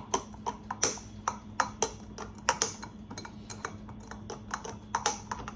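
A spoon stirring in a cup, clinking against its side in a quick, irregular run of light clicks, several a second.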